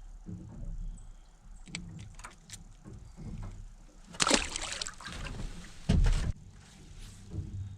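A bass hooked on a jig being landed into a small aluminium boat. Scattered clicks and knocks, then a loud splashing rush about four seconds in and a heavy thump against the hull about six seconds in.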